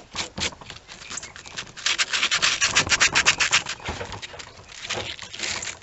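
Sandpaper rubbed by hand in quick back-and-forth strokes over a sneaker's sole, roughening it so hot glue will stick. The strokes are loudest and fastest about halfway through.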